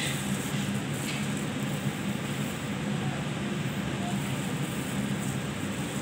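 Steady low mechanical hum with background noise, like a running fan or motor, with a faint rustle of chopped lettuce being tossed about a second in.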